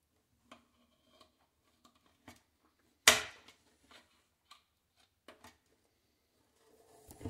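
Scattered small clicks and knocks of metal spring clamps and a wooden bending form being handled in a stainless steel sink, with one loud sharp knock about three seconds in that rings briefly. A few more knocks and some rustling come near the end.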